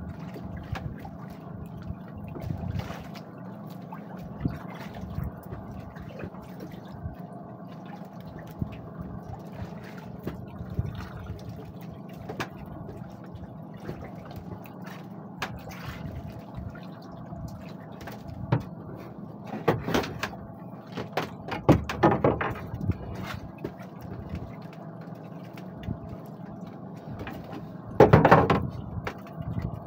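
Sea water sloshing and lapping against a small wooden outrigger boat's hull while a fisherman hauls a gill net aboard by hand. A few brief louder bursts come about two-thirds of the way through and again near the end.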